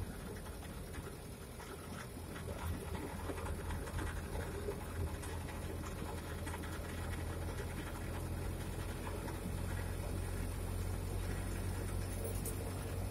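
Steady engine hum and road noise heard from inside a moving vehicle's cab, growing slightly louder about halfway through.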